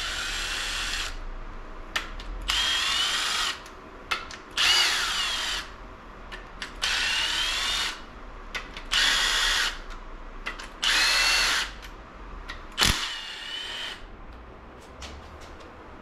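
A handheld power drill/driver spinning bolts out of an engine during teardown, in about seven short runs roughly two seconds apart, its motor whine rising and falling within each run. Short clicks of metal parts come between the runs.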